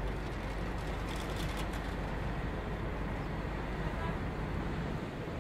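Sightseeing catamaran's engine idling steadily while the boat is moored at the pier: a low hum under an even wash of noise, with a few faint clicks about a second in.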